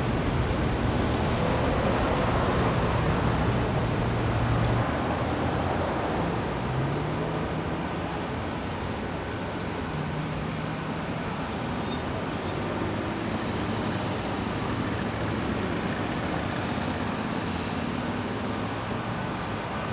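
Steady road traffic noise of vehicles passing and idling, with a low engine hum that drops away about five seconds in.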